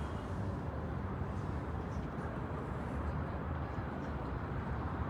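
Steady low hum of distant city traffic rising from the town below.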